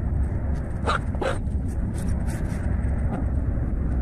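Chickens foraging in grass, with two short clucks about a second in and faint scattered pecking ticks over a steady low rumble.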